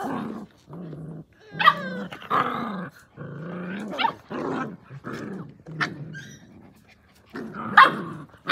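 Australian Cattle Dog (blue heeler) puppies growling in rough play, a run of short growls broken by a few sharp, high yips.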